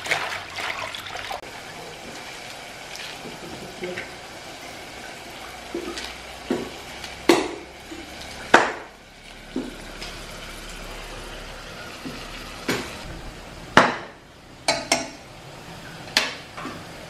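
Water splashing in a metal basin as hands wash leafy greens for about the first second and a half. Then a steady background hiss, broken by a dozen or so sharp clinks and knocks of metal kitchenware, the loudest about eight and a half and fourteen seconds in.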